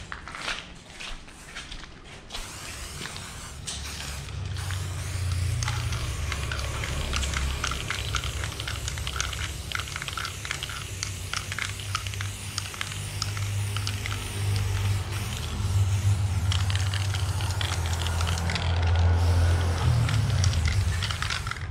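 Aerosol spray-paint can hissing in many short, repeated sprays as paint is laid onto a wall, over a steady low rumble. The spraying is faint at first and builds up after a few seconds.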